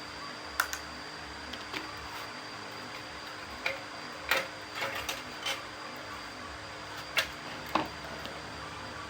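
Scattered sharp clicks and knocks of small tools and metal parts being handled, about eight at irregular intervals, over a steady hiss.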